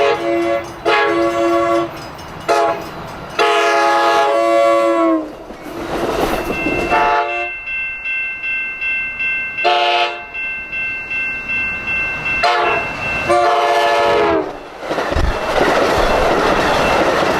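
Nathan Airchime K5LA five-chime train horn on a Pacific Surfliner cab car, sounding long, long, short, long in the first five seconds. Three more blasts follow, the last one long. Near the end comes the noise of the train running by, with rail clatter.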